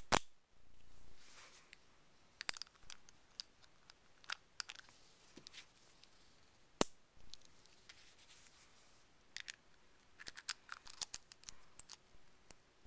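Small metal clicks, clinks and scrapes of a Best padlock's interchangeable core being put back into the lock body, with a sharp click right at the start and another about seven seconds in.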